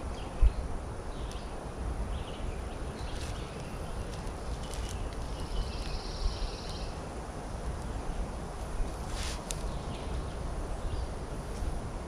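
Pine-woods ambience: scattered faint bird chirps over a low steady rumble, with a short high buzzing trill about halfway through and two quick clicks near the end.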